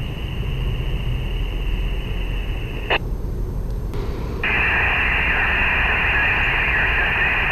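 Handheld ham radio receiving a weak FM return transmission: a steady hiss of static with little clear voice. The hiss breaks off with a click about three seconds in and comes back louder about a second and a half later. The noisy, broken signal is a sign of poor signal quality at the edge of range.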